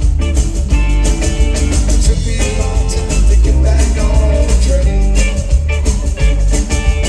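Live rock band playing an upbeat groove: hollow-body electric guitar over drums and heavy bass.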